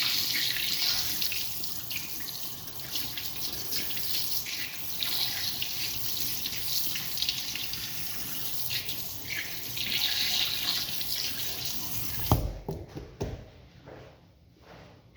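Water running steadily, then shut off suddenly with a knock near the end, followed by a few light knocks.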